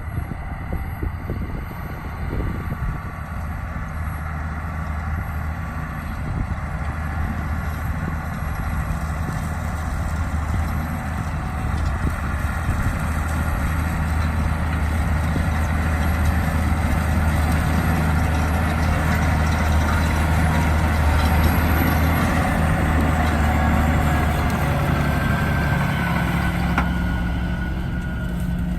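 Challenger MT675D tractor's diesel engine running under load while pulling a ripper, with bad injectors. The steady engine note grows louder over the first two-thirds, then eases a little near the end.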